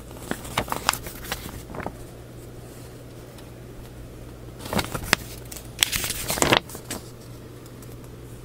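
Paper pages of a model kit's instruction manual rustling and crackling as they are turned and handled, in two bursts: one at the start and one about five seconds in.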